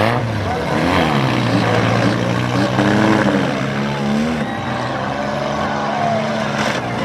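Several demolition derby car engines running and revving, their pitches rising and falling and overlapping, with a rev about a second in and steadier running through the middle.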